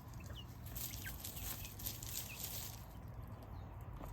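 A young chicken peeping: several short, high, falling cheeps, a baby chick sound it still makes. Scratchy rustling runs under it for the first few seconds, as the chickens scratch through the ground.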